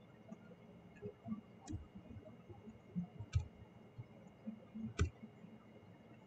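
Faint computer keyboard and mouse clicks while text is edited: a few sharp clicks scattered a second or two apart, with soft low thumps between them, over a faint steady hum.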